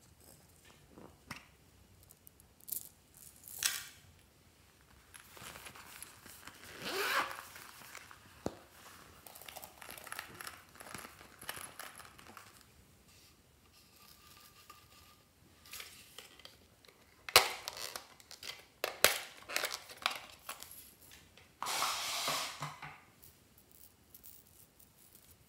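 Close-up handling of slime-making packaging: a plastic slime container being opened, a zippered fabric pouch being unzipped and small plastic tubes and packets being handled. It is a series of rustles and rasps with a cluster of sharp clicks a little past the middle, and quiet gaps between.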